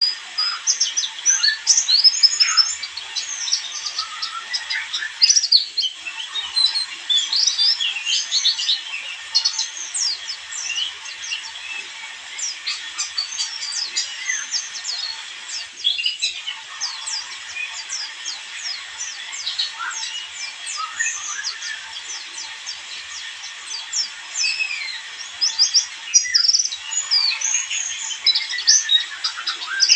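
White-eye (pleci) singing a fast, continuous twittering song of high chirps and trills, with short breaks about every ten seconds.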